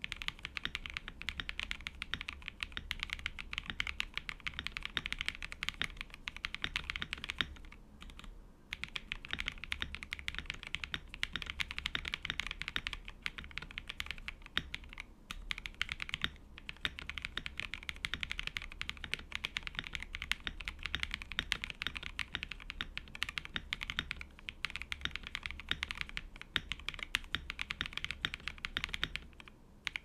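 Fast, continuous typing on an Akko ACR Pro 75 mechanical keyboard fitted with Tescee Ice Candy switches lubed with Krytox 205g0 and 105, Akko ASA-profile keycaps and lubed, tuned stabilizers. A dense run of keystrokes, broken by a few brief pauses.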